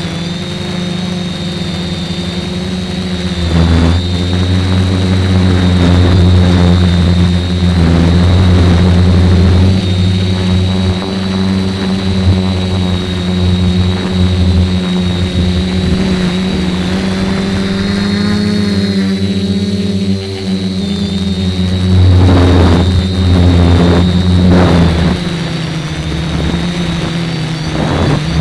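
DJI F450 quadcopter's brushless motors and propellers running, heard from a camera fixed to the airframe: a steady hum with a high motor whine. It gets louder about three and a half seconds in, and the pitch dips and wavers about two-thirds of the way through.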